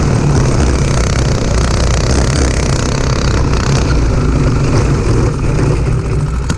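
Single-cylinder Honda 5.5 hp engine of a go-kart running steadily at speed as the kart drives over rough ground.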